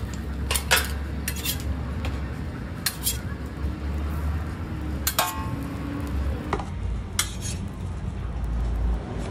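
Metal spatulas scraping and tapping on a flat steel griddle while an egg sheet is folded around a toast sandwich. There are about half a dozen short scrapes and clinks, one ringing briefly about five seconds in, over a steady low hum.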